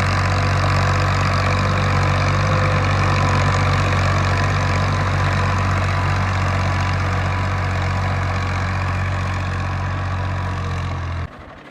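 Tractor's diesel engine running steadily with a deep, even throb, which cuts off suddenly near the end.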